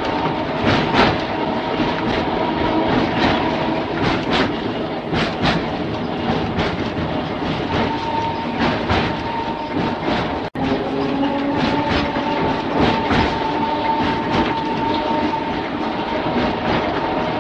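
Mumbles Railway car running along the line, its wheels clicking over the rail joints again and again, often in pairs. A steady whine runs over the running rumble. The sound cuts out for an instant about ten seconds in.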